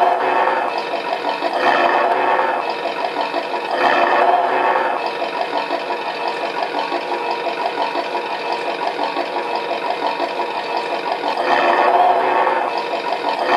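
Beier USM-RC-2 sound module playing a simulated Ford V8 engine through a small loudspeaker in a model truck. It runs a lumpy, pulsing idle with no deep bass, and the throttle is blipped near the start, about two and four seconds in, and again near the end.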